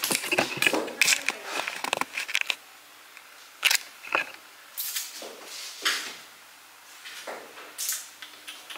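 Handling noise from a hand-held compact camera on a small tripod grip: scattered rustles and a few sharp clicks and knocks as it is moved about, in a small room.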